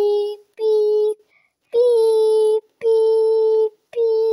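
A girl's voice singing a string of held notes, all on the same pitch, about one a second. Each note starts with a slight drop in pitch and stops cleanly before the next.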